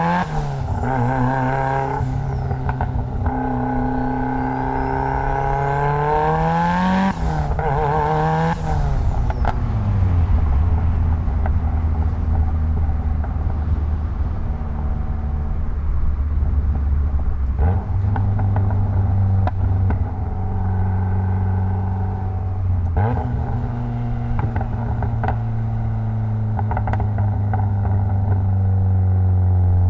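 Mitsubishi Lancer Evolution X's turbocharged 2.0-litre four-cylinder engine pulling up through the revs, with its pitch rising for several seconds and then dropping at the gear changes. After that it settles to a steady low note at light load.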